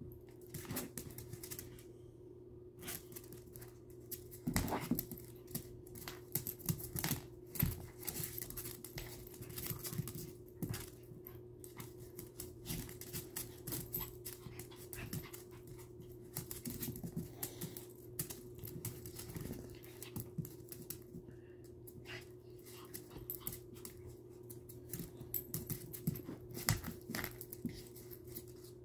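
Two small dogs play-fighting on a hard laminate floor: their claws click and scrabble in quick, irregular bursts as they wrestle.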